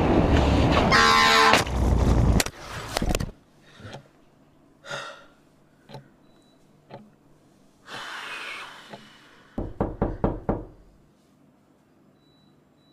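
A loud burst of crash noise lasting about three seconds, with a brief shrill screech in the middle, from a motorcycle accident. About ten seconds in comes a quick run of about six knocks on a door.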